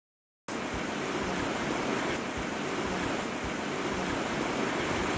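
Mountain stream water rushing over rocks and riffles, a steady even rush that cuts in after a brief dropout at the start.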